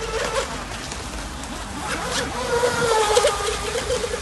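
Electric motor of a TFL Rocket 25-inch RC speedboat on a 3S LiPo, whining steadily at speed, with spray hissing off the hull. It grows louder around three seconds in.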